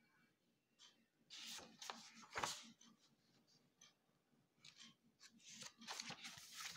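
Paper pages of a book rustling as they are turned and handled: a run of rustles starting about a second in and peaking around two and a half seconds, then softer rustles near the end.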